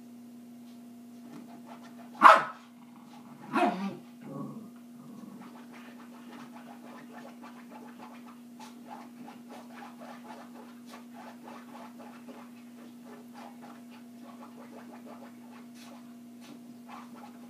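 A Silky Terrier barks twice, sharply, about two seconds in and again a second and a half later, with a softer yip just after the second; then only faint scattered sounds over a steady low hum.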